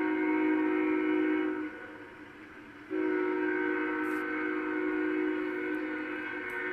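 Union Pacific diesel locomotive's Nathan K5HL five-chime air horn sounding two long blasts, with a short break between them about two seconds in. It is heard through a computer's speakers from a webcam stream.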